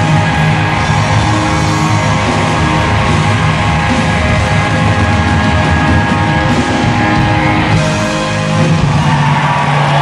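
Loud live band music from a concert stage performance.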